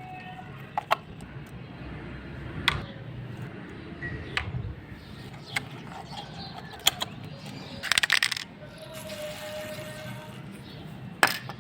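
Small metal alarm-clock parts being handled: sharp, separate clicks and clinks every second or two, with a short flurry of rapid clicks about eight seconds in, over a steady low hum.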